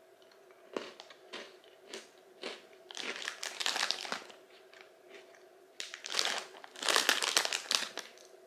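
Crunchy white-chocolate kruidnoten being bitten and chewed, with a few sharp crunches. A plastic snack bag is crinkled about three seconds in and again near the end as a hand rummages in it.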